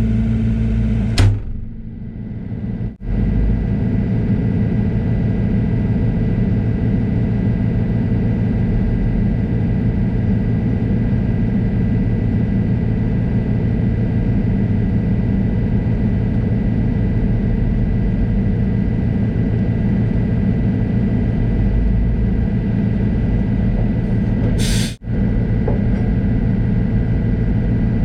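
Heavy-equipment diesel engine running steadily, with a sharp click about a second in and brief breaks in the sound near the start and near the end.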